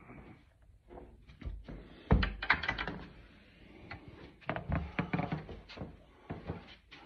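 Handling noise from a phone being moved about: a run of knocks, thumps and rubbing, loudest a little after two seconds in and again around five seconds.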